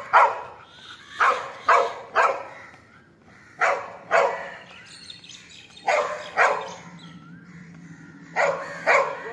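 Yellow Labrador retriever barking repeatedly: loud, short barks in quick pairs and triples, about every two seconds.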